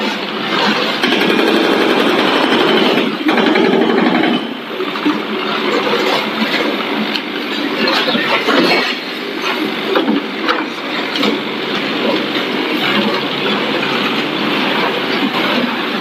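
Mattson ML530 tracked mini skid steer loader working rubble: its engine runs under load while the tracks and clip bucket clatter and clank over broken concrete and debris.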